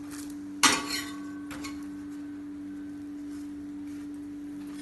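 A flat steel spatula knocks once against a stainless steel frying pan about half a second in, with a short metallic ring, then two lighter taps as the toasting bun halves are turned. A steady low hum runs underneath.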